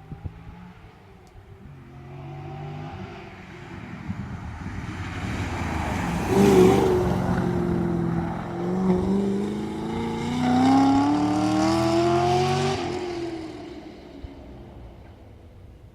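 Chevrolet Camaro Z/28's V8 engine driving past under power, growing louder to a peak about six seconds in, then rising steadily in pitch as it accelerates before fading away.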